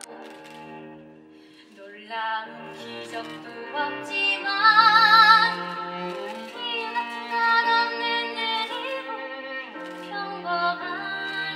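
Woman singing a slow musical-theatre ballad over instrumental accompaniment, rising to a loud held note with wide vibrato about five seconds in.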